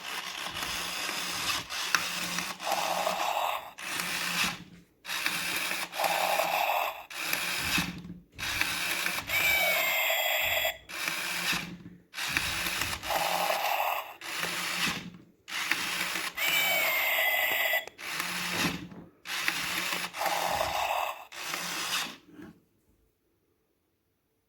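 Small motor and plastic gears inside an electronic Furby-style toy whirring in repeated bursts about a second long, with short gaps between them, stopping about 22 seconds in.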